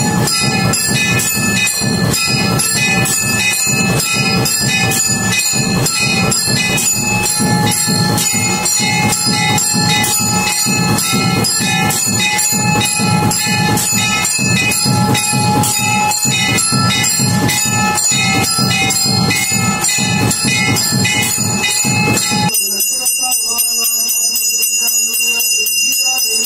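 Temple bells rung fast and without a break, clanging over a dense low beat, as during the puja. About four seconds before the end the strikes stop and only the ringing tones carry on.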